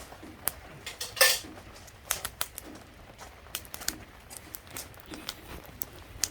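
Burning firewood crackling, with irregular sharp pops and a louder burst of crackling about a second in.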